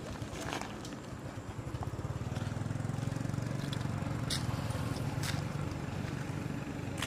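A small engine running steadily, getting louder through the middle, with a few sharp clicks over it.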